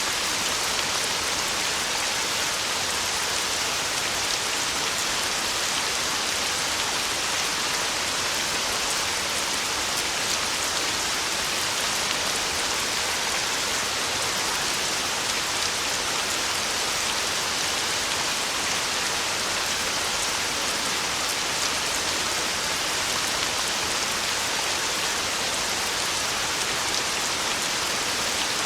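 Heavy rain falling in a steady, even hiss with no let-up and no thunder.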